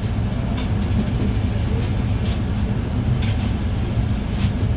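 City bus running, heard from inside the passenger cabin: a steady low engine and road rumble, with several brief high-pitched ticks.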